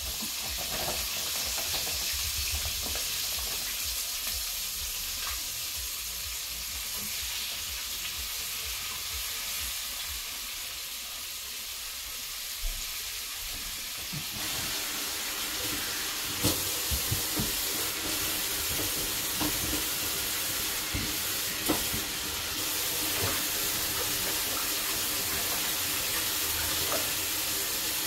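Chicken frying in hot grease in a skillet: a steady sizzle, with a few light knocks and clicks in the second half.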